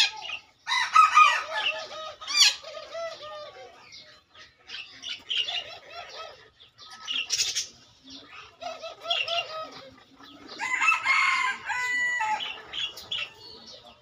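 Domestic chickens clucking and calling in irregular clusters of short calls, with other birds chirping.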